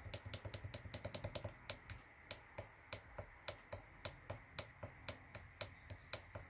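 Faint, quick clicking from a small tactile push button on a breadboard being pressed over and over: very fast at first, then about three clicks a second.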